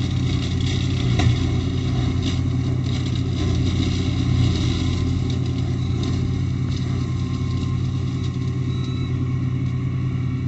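Same Explorer II 60 Turbo tractor engine running steadily while driving a Maschio Giraffe L 170 flail mower, with a short knock just over a second in.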